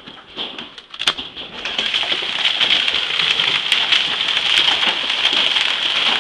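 Hailstones and heavy rain pelting down on a car and the ground: scattered sharp ticks at first, then about a second in a dense, steady clatter full of separate stone strikes.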